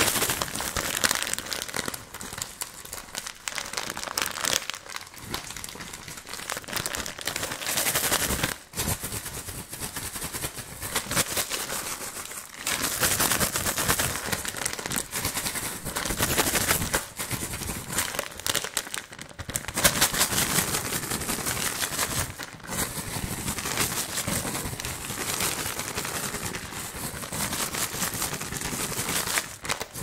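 A crinkly plastic candy bag crumpled and shaken fast and hard right up against the microphone, a continuous rapid crackling that stops briefly a few times.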